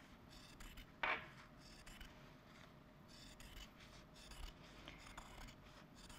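Scissors cutting through fine fabric to trim a collar's seam allowance: a run of faint snips, with one louder cut about a second in.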